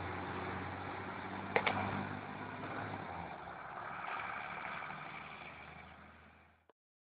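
Diesel engine of an Ikarus-Zemun IK-166 articulated city bus (MAN D 2866 UM six-cylinder) running steadily as the bus pulls away, with two sharp clicks about a second and a half in. The sound fades as the bus moves off and cuts off just before the end.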